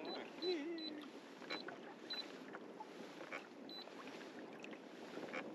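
Short, high electronic key beeps from a kayak-mounted fish finder as its buttons are pressed, about six of them at irregular intervals over the first few seconds. Beneath them is a faint steady wash of water around the kayak.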